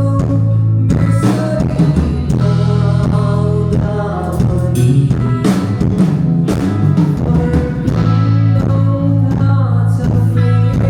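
Live rock band playing during a sound check: electric guitar, bass and drum kit with a singer.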